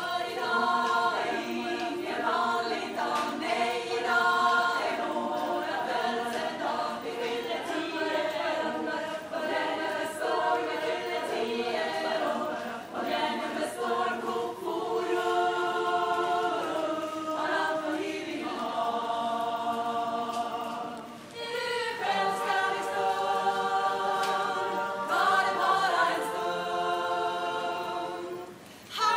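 A choir singing a cappella in several voice parts, with a short break between phrases a little over two-thirds of the way through.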